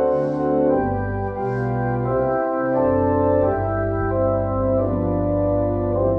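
Church organ playing slow, held chords that change about once a second over sustained bass notes.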